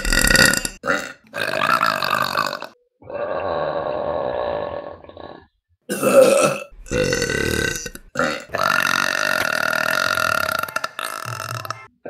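A rapid series of women's burps from different recordings, one after another: short ones mixed with long, drawn-out belches of two to three seconds.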